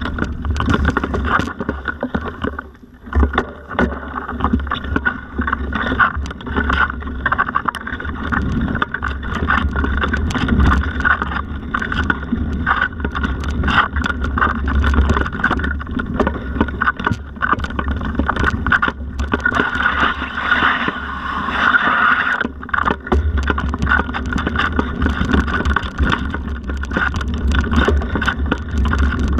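Mountain bike rattling over a rough forest trail: a dense run of small knocks and clicks from the bike and tyres on roots and dirt over a steady low rumble, briefly quieter about three seconds in.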